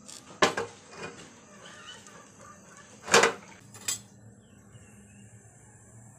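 Dishes clattering as they are set down and shifted on a table: a few knocks about half a second in, the loudest clatter about three seconds in, and one more just before four seconds.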